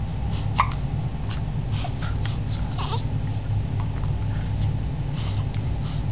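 A baby hiccupping: a short sharp hiccup about half a second in and another near three seconds, with soft baby vocal sounds between, over a steady low hum.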